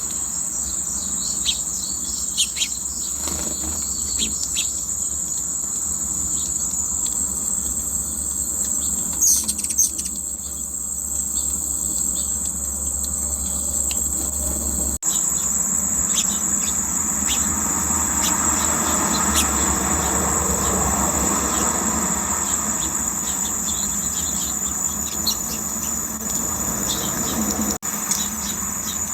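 Steady, high-pitched insect chorus, with short bird chirps over it now and then.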